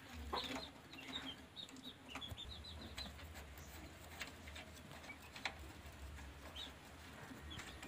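Faint chickens clucking and small birds chirping, with a few light clicks as a hand handles the steel roller of the stopped rice huller.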